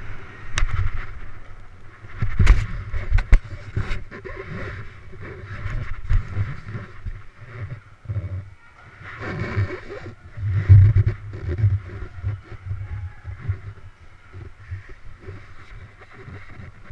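BMX bike rolling down a wooden ramp, heard through a helmet-mounted camera as an uneven low rumble. Two heavy thuds come about two and a half and three seconds in as bike and rider land in the foam pit. They are followed by the scuffing and knocking of foam blocks as the rider and bike shift about in the pit.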